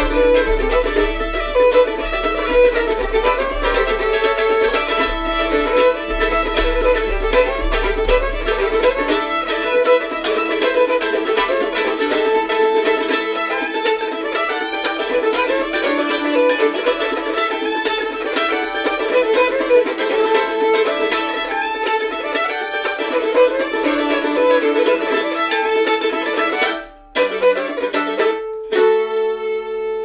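Fiddle and mandolin duo playing a lively old-time fiddle tune, the fiddle bowing the melody over the mandolin's chop. A low, steady foot-percussion beat runs under the first third. Near the end the music breaks off briefly, then closes on one long held final chord.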